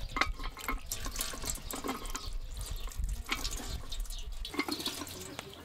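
Water splashing and dripping in an enamel basin as a small child's hands are rubbed and rinsed in it, in many irregular little splashes.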